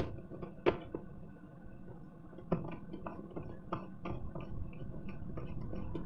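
Clicks and light metallic rattling from a door's lever handle and lock plate being handled. There is a sharp click a little under a second in and another about two and a half seconds in, followed by a run of small, quick clicks.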